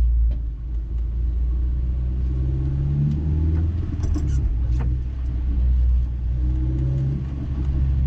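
Honda S2000 heard from inside the cabin while driving: a steady low rumble of the four-cylinder engine and the road, with none of the rear clunk ('gakon') from the differential, which is not appearing on this test drive.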